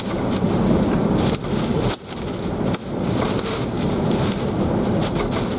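Hurricane-force wind blowing hard against an SUV, with many sharp ticks and knocks of flying rocks and debris striking it.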